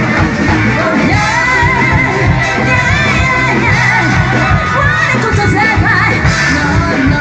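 Live rock band playing loudly, with a steady drum-and-bass pulse under a melody line that bends up and down in pitch.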